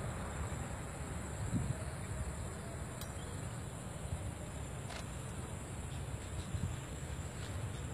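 Steady high-pitched insect chirring over a low rumble, with a sharp click about three seconds in and another about five seconds in.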